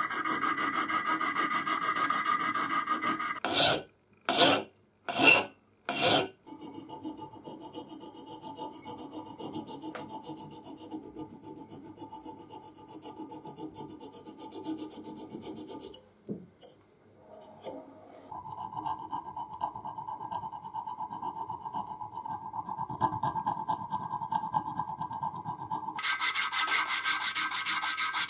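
Hand file rasping across a small knurled brass part clamped in a vise. It starts with quick steady strokes, then comes four slow, separate, louder strokes a few seconds in, then lighter steady filing with a brief pause a little past halfway. Near the end comes a louder, brighter rubbing of abrasive paper sanding the part.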